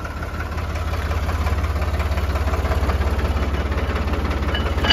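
Tractor diesel engine running steadily, swelling slightly about a second in, with a sharp knock at the very end.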